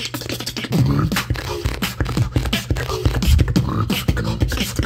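Live beatboxing: a rapid run of mouth-made kick, snare and hi-hat clicks over a low vocal bass line, with a few short hummed notes, getting louder about a second in.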